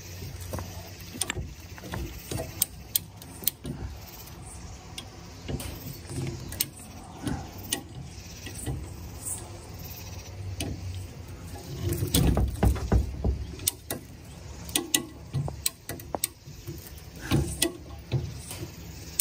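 A hand-operated body puller being worked to pull out a crushed steel quarter panel on a 1957 Chevy Bel Air: a run of irregular sharp clicks and metallic knocks as it is pumped, heavier and louder about twelve seconds in.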